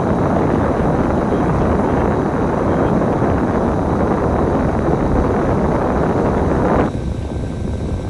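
Onboard noise of a moving bus: steady engine and road rumble mixed with wind noise, which drops abruptly about seven seconds in.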